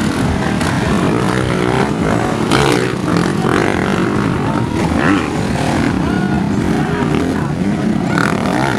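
Several motocross dirt bikes accelerating through mud, their engines revving, rising and falling in pitch as they ride past one after another.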